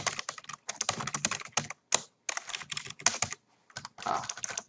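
Computer keyboard typing: quick runs of keystrokes, with two short pauses about two and three and a half seconds in.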